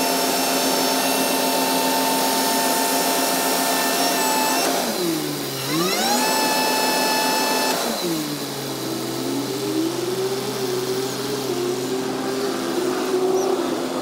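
Hydraulic drive of a Magirus fire-engine aerial ladder running with a steady mechanical whine as the ladder lowers its basket. About five seconds in the whine drops in pitch and climbs back up, and after about eight seconds it settles at a lower pitch.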